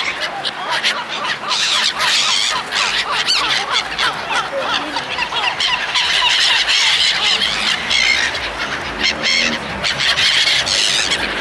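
A flock of seagulls calling over one another, many short cries overlapping without a break.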